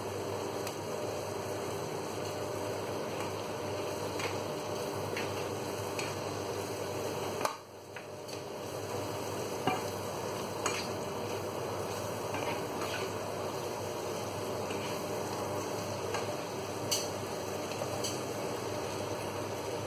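Mackerel and vegetables sizzling steadily in a nonstick frying pan, with a few light taps of a plastic spatula against the pan. The sizzle briefly drops away about seven seconds in, then returns.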